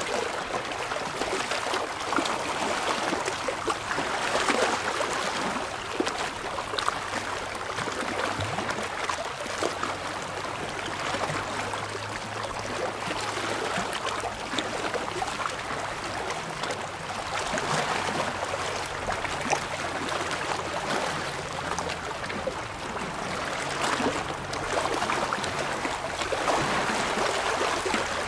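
Small waves lapping and splashing against shoreline rocks, the wash swelling and easing every few seconds.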